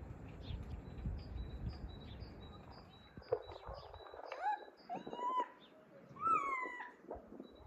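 A puppy whining in short rising-and-falling whimpers from about three seconds in, the loudest a longer falling whine about six seconds in, with a small bird chirping steadily in the background.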